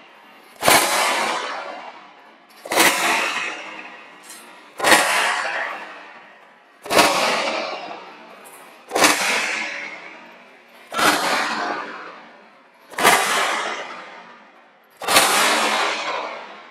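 A whip cracking eight times, about every two seconds, to snuff out candle flames one by one. Each sharp crack trails off in a long, echoing fade.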